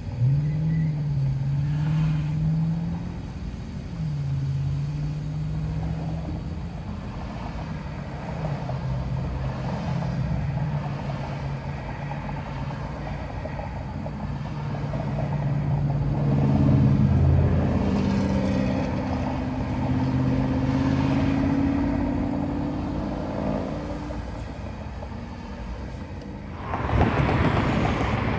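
Motor vehicles idling and running in slow traffic, a steady low engine hum whose pitch shifts now and then. Near the end a louder rush of wind and road noise comes in as the car moves off.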